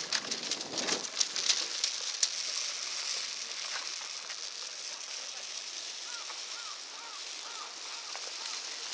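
Large open bonfire of a saito goma fire ritual, crackling and popping sharply for the first couple of seconds over a steady hiss. From about six seconds in, a bird calls in a quick run of short rising-and-falling notes, about two a second.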